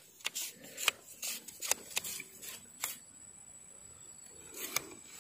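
Handling noise as a small fish is swung in on a long fishing pole and caught by the line: a few irregular sharp clicks and soft rustles, more of them in the first three seconds and one more near the end.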